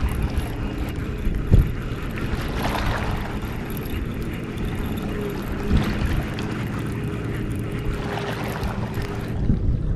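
Wind rumbling on the microphone, with a faint steady hum in the background from about five seconds in until near the end.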